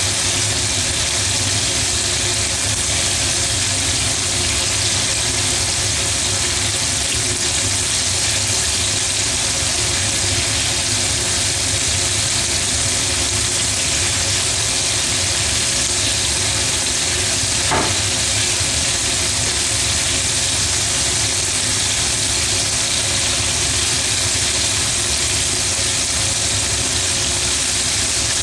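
Coated pieces of meat deep-frying in hot oil in a small pan: a steady, dense sizzle over a constant low hum, with one brief tap about two-thirds of the way through.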